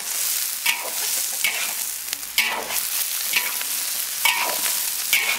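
Metal spatula scraping and turning chopped pig lung in a large wok, the pieces sizzling steadily in hot oil. The spatula scrapes across the wok about once a second, some strokes with a brief metallic ring.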